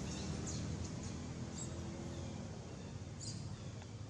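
Outdoor background: a low, steady rumble that slowly fades, with three brief high chirps spread across it.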